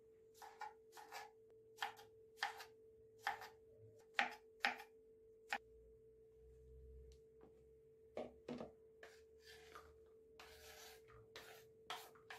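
Knife chopping cucumber into small cubes on a plastic cutting board: irregular sharp knocks, one to two a second, stopping for a couple of seconds midway before starting again. A short scrape comes near the end.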